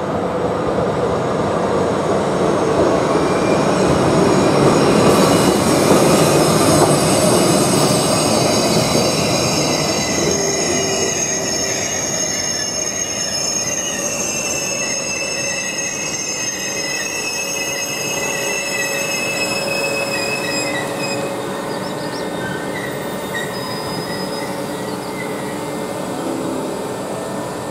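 Long locomotive-hauled RegioJet passenger train rolling into the station and slowing for its stop. A heavy rumble of wheels on rail swells and then eases off. From about five seconds in, a high, many-toned squeal from wheels and brakes rises over it and thins out as the train comes almost to a stop.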